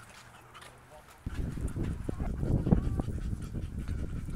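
French bulldog snorting and panting as it walks on a leash, with short honking snorts, starting about a second in over a low rumble.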